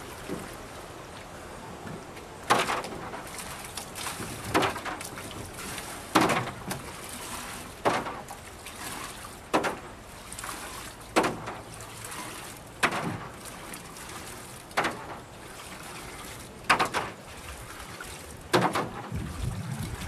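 Rainwater being bailed by hand out of a rowboat into a 5-gallon bucket: a scoop and splash repeated about every two seconds, ten times.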